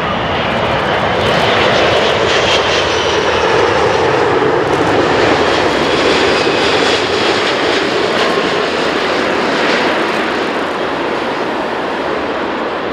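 Airbus A380-861's four Engine Alliance GP7200 turbofans on landing approach: a loud, steady jet rush with a faint high whine, loudest a few seconds in and easing slowly after.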